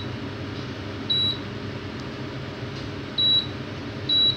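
Electric oven's control panel beeping as its buttons are pressed to set the temperature: three short, high single-tone beeps, about a second in, at about three seconds and near the end, over a steady low hum.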